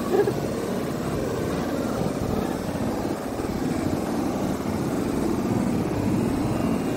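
Sea surf washing and breaking over the sand, with steady wind rumbling on the microphone.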